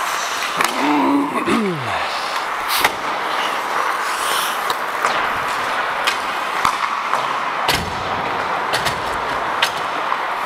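Ice hockey play heard on the ice: a steady scraping hiss of skate blades on the ice, broken by sharp clacks of sticks, puck and boards. A short tone falls in pitch about a second in, and the loudest knocks come about three and eight seconds in.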